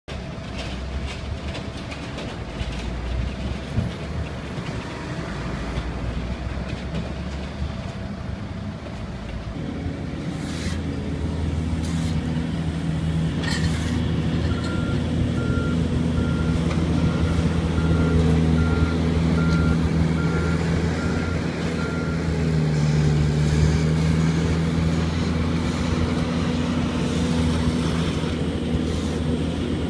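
Heavy diesel engine of a skid steer loader running close by, with a reversing alarm beeping at a steady pace for several seconds midway and a few scraping knocks from shovels on the road. Earlier there is a lower, more distant rumble of idling trucks and traffic.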